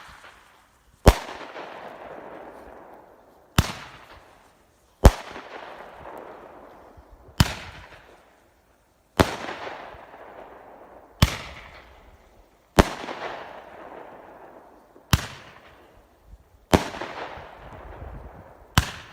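An 8-shot Pyro Diablo Roman candle firing, with ten sharp bangs coming about every two seconds as its shots launch and break in the air. Roughly every other bang trails off in a long, fading tail.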